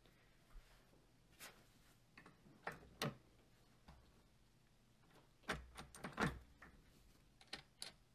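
Scattered light knocks and clicks of a wooden embroidery hoop and its fabric being handled on a desk, the loudest about three seconds in and a cluster around six seconds in.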